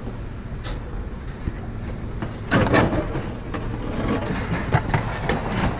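Scrap metal clattering and knocking over a steady low machine rumble, the loudest clatter about two and a half seconds in.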